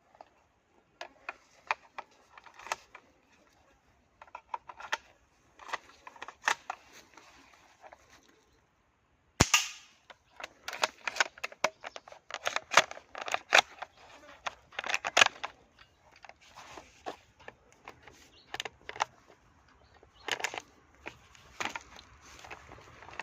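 KJ-M700T green-gas airsoft bolt-action sniper rifle replica being handled and fired: a series of sharp clicks and clacks in clusters, with a short silent gap and then one loud sharp crack about nine seconds in.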